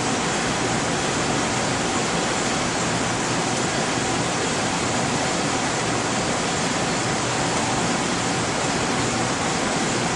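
Steady, even rushing noise of laboratory equipment and ventilation, with a faint constant tone running through it.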